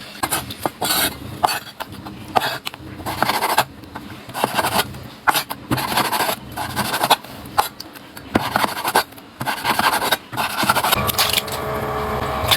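Irregular scraping and rubbing strokes with light knocks, settling into a steadier sound near the end.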